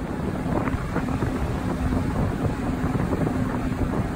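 Fishing boat under way at sea: a steady low engine hum under water rushing and splashing past the hull, with wind buffeting the microphone.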